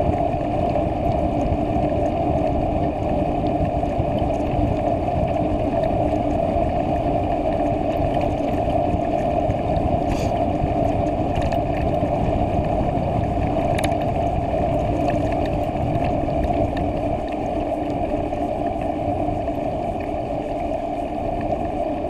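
Steady rush of wind and tyre noise from a bicycle riding on asphalt, picked up by a handlebar-mounted camera. A couple of faint ticks come about ten and fourteen seconds in.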